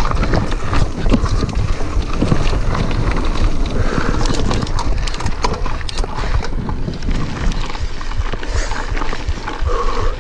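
Radon cross-country mountain bike descending a rough, stony dirt trail: tyres rolling and crunching over gravel with frequent rattles and knocks from the bike over the bumps. Wind rumbles on the bike-mounted camera's microphone.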